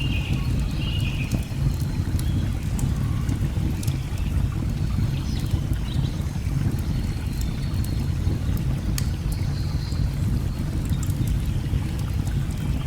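Steady low rush of a waterfall, with sharp crackles and pops from a burning log fire scattered through it. A few short bird chirps come at the start.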